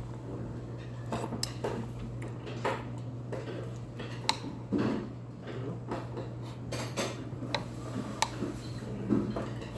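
Metal spoon clinking and scraping against a heavy earthenware soup bowl, a dozen or so sharp, irregular clicks as soup is scooped, over a steady low hum.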